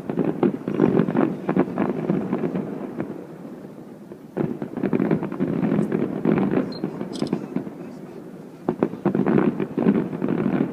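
Fireworks exploding in three dense volleys of rapid crackling bangs, with short lulls between them.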